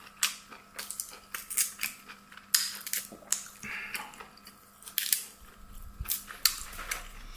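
Close-miked chewing: a person eating, with irregular wet clicks and crunches from the mouth.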